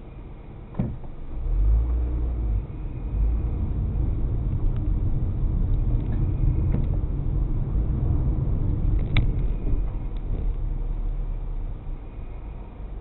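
Car heard from inside the cabin as it pulls away and drives on: a low engine and road rumble that swells about a second and a half in and eases off near the end. A short click comes just under a second in and another about nine seconds in.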